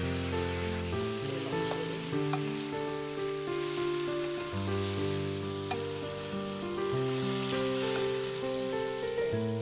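Lamb sizzling in a hot wok as Chinese rice wine boils off in steam, the pieces stirred with a wooden spatula; the sizzle swells twice. Background music of held notes plays under it.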